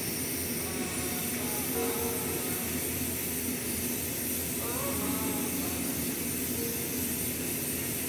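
Dental equipment running steadily in the patient's mouth during brace removal, a constant rushing hiss with a faint high whine.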